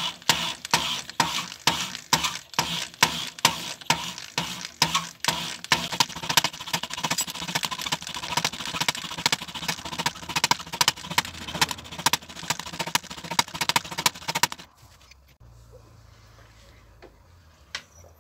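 Valve of a diesel walk-behind tractor's cylinder head being hand-lapped into its seat with lapping paste, turned back and forth by a hand drill: gritty metal-on-metal scraping in quick rhythmic strokes, about two a second, stopping a few seconds before the end. The lapping seats the valve so it seals, curing the head's lack of compression.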